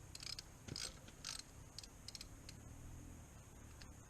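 Hand socket ratchet clicking faintly in a few short strokes, about two a second.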